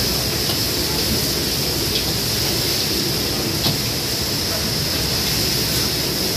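Steady rushing noise of several high-flame gas wok burners, with a few light clinks of metal ladles against the woks.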